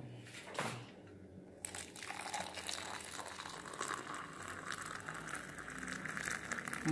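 Hot water being poured into a ceramic mug over a scoop of instant coffee powder, a steady pouring sound that begins about a second and a half in.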